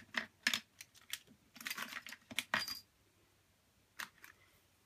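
Small scrapbooking embellishments clicking and clattering as they are sorted through by hand. A quick run of sharp clicks and rustles, then a single click near the end.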